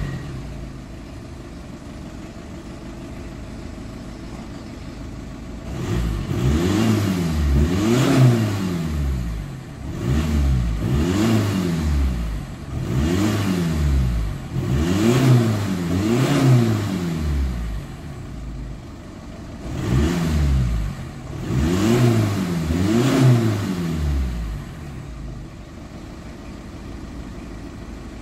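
Volkswagen Tiguan 2.0 TDI 170 four-cylinder diesel with its rear silencer removed, idling, then revved in short blips, mostly in pairs, about ten times, before settling back to idle.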